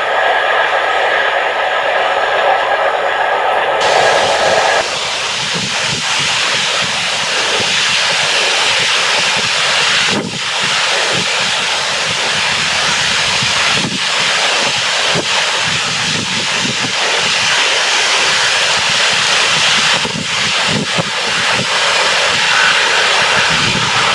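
For the first four seconds or so, a steam locomotive and its support coach move away with a steady high ringing from the train. Then a steam locomotive approaches under steam, its exhaust and running noise loud and continuous.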